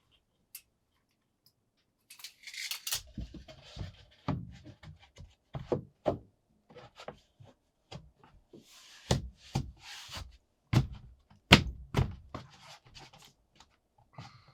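Irregular thuds and knocks starting about two seconds in, a dozen or so sharp hits at uneven intervals, with brief scraping or rustling between them, in a small room.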